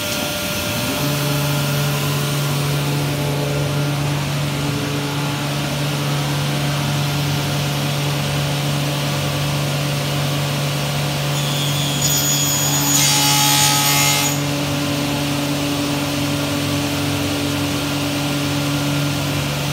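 A TR3200 TD sliding-table panel saw comes up to speed about a second in, then runs with a steady hum. About twelve seconds in, a louder rasping noise lasts roughly two seconds as the blade cuts through a wooden board.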